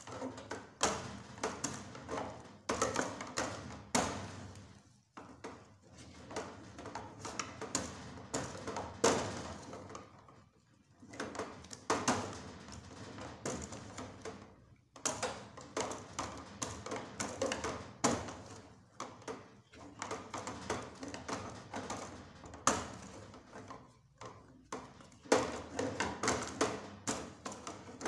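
A wooden stirring stick scraping and knocking against an aluminium pot as yam-flour paste for amala is mixed and turned, in quick irregular strokes with a few brief pauses.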